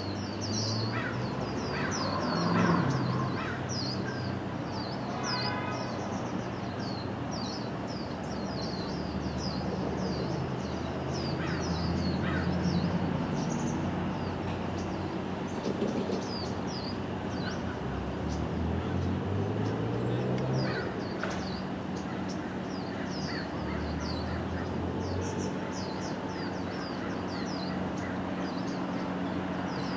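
Many birds chirping continuously in short high-pitched chirps, over a low engine hum that now and then rises and falls in pitch.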